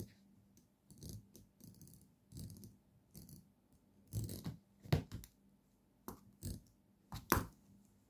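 Irregular scratching, rustling and sharp clicks as a cat bats and grabs at a fountain pen held against a spiral-bound paper notepad, pen and claws knocking on the paper and the pen's metal. The loudest clicks come about five seconds in and near the end.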